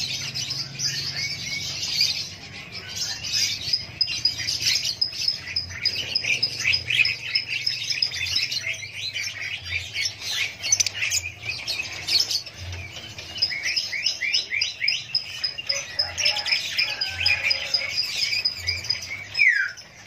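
Many caged lovebirds chattering, a dense chorus of overlapping high chirps and squawks with no pause. A rapid high-pitched trill runs through it twice for a few seconds.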